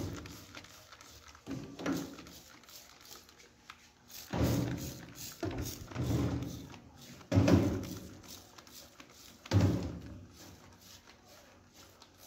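Trigger spray bottle spritzing degreasing cleaner over the inside of a gas stove: about five separate bursts a second or two apart, each with a dull thud.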